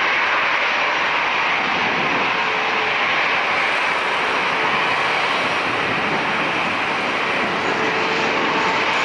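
Boeing 757-200's twin Rolls-Royce RB211 turbofan engines at takeoff thrust: a steady, loud jet noise as the airliner runs down the runway and lifts off.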